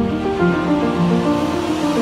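Background music with sustained notes that change every half second or so.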